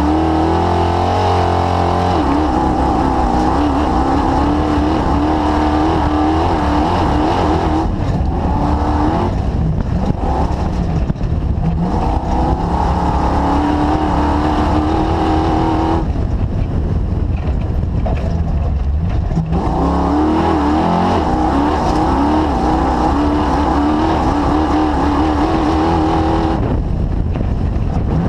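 The DirtKinetics Explorer's engine running on a cruising lap, its pitch rising and falling with the throttle. It eases off several times, with the longest lull about halfway through.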